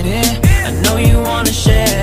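Background R&B/hip hop song with a steady beat: deep bass-drum hits that drop in pitch, a ticking hi-hat and a melody over it.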